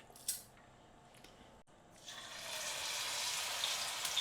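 A short tick, then about two seconds in hot oil starts sizzling and rises to a steady hiss as cauliflower pieces fry.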